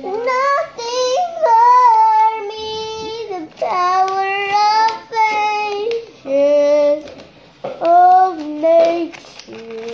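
A young girl singing unaccompanied in short held phrases, with brief pauses between them.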